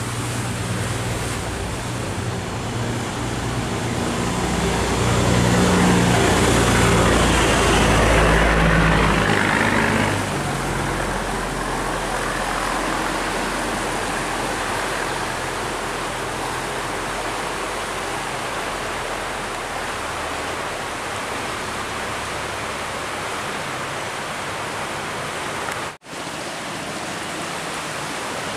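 A steel cargo barge's engine running as the barge passes close by, with water rushing along its hull. It is loudest about five to ten seconds in, then gives way to a steady rush of water. The sound cuts out for an instant near the end.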